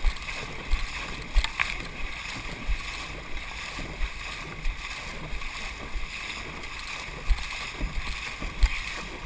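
Dragon boat drum beating a steady stroke rhythm, about one and a half beats a second, over the rush and splash of paddles digging into the water.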